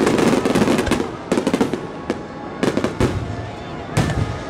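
Display fireworks going off in quick succession. A dense burst of crackling and bangs comes in the first second, followed by a run of separate sharp booms from bursting aerial shells.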